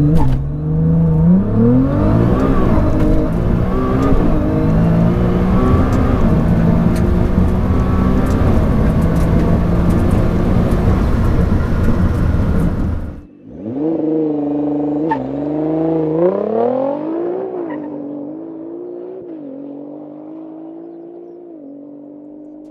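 A 1000 bhp tuned Nissan GT-R R35's twin-turbo V6 under hard acceleration on a quarter-mile run, revving up and shifting through the gears. About 13 seconds in, the sound cuts to a quieter, more distant engine note that climbs through a few more gears and then fades away.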